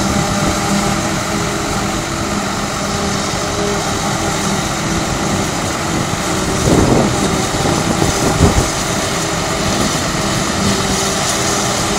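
Claas self-propelled forage harvester picking up and chopping a grass swath for silage, its engine and chopper running with a steady heavy drone, joined by the tractor hauling the silage trailer alongside. A couple of brief low thumps come a little past halfway.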